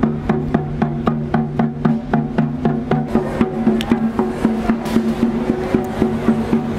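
Background music with a steady, light percussive beat of about four ticks a second over held low notes.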